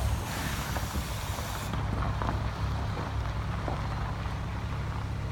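The engine of a boat-haulage rig running steadily as it moves a catamaran on its trailer at low speed. A hiss lasts through the first second and a half or so.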